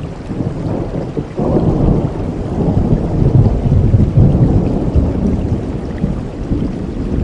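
Thunder rumbling over steady rain: a deep rumble swells suddenly about a second and a half in, peaks a couple of seconds later, then slowly dies away under the rain.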